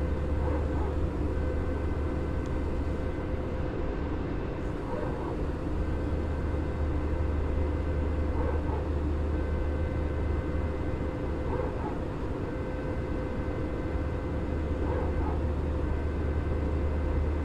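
Airbus A320 cabin noise in flight: a steady deep jet-engine and airflow drone with a constant hum over it, and a faint high whine that drops out briefly every few seconds.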